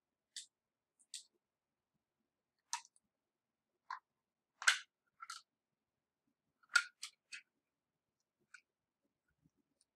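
Galileoscope's plastic parts clicking and knocking as they are taken apart and set down on a table: about ten separate short knocks, the loudest about five and seven seconds in.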